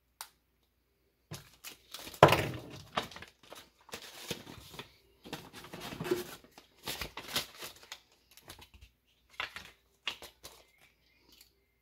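Small clear plastic bag crinkling and rustling in irregular bursts as it is handled with a pocket watch inside, loudest about two seconds in.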